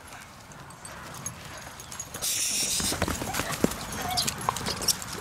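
Dogs scrambling and running over dirt and straw: scattered paw thumps and scuffs, with a hissing rustle a little over two seconds in and a couple of brief squeaks near the end.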